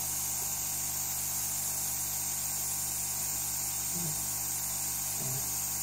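Air pump of a WEP 968DB+ hot air rework station with fume extractor running steadily: a constant hum with an even hiss of moving air. The pump is drawing flux smoke through the extractor again now that the clog has been cleared.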